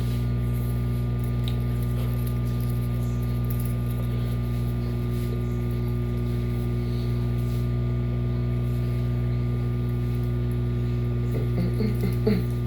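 Hamilton Beach 1000-watt microwave oven running on high, a steady low hum.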